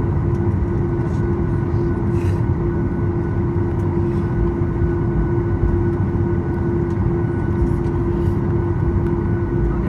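Cabin noise of a Boeing 737 MAX 8 taxiing, its CFM LEAP-1B engines at idle. A steady hum with a clear steady tone, heard from a seat over the wing.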